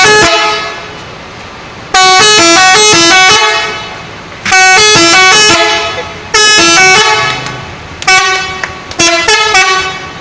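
Indonesian bus telolet horn playing its tooting multi-note tune in about four short phrases with brief gaps, the last broken into quick short toots.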